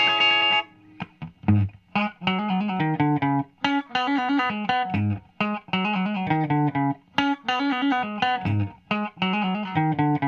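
Electric guitar with P90 pickups played through a Caline Hot Mushroom compressor pedal into a small solid-state amp. A held chord cuts off under a second in. Then a short riff of picked notes and chords repeats several times, each pass ending in a brief gap.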